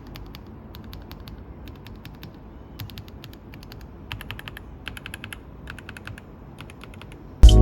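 Typing on an SPM PL87A mechanical keyboard with factory-lubed Haimu Sea Salt linear switches and PBT keycaps: a run of irregular keystroke clacks, some in quick bursts. Music cuts in near the end.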